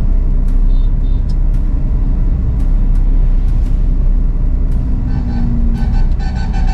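Car cabin noise while driving: a steady low engine and road rumble. Short repeating tonal notes begin to come in near the end.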